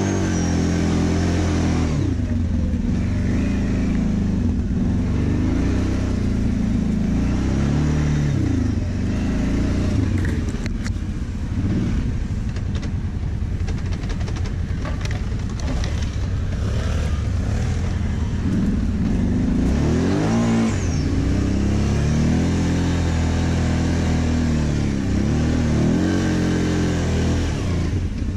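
ATV (quad bike) engine running at low speed on a rough dirt trail, its pitch rising and falling several times as the throttle is opened and eased off. There are a few sharp knocks partway through.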